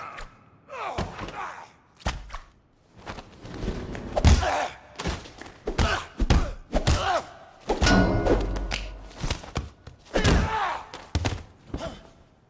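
Film fight sound effects: a rapid, uneven run of punch and kick impacts and body thuds, over background music.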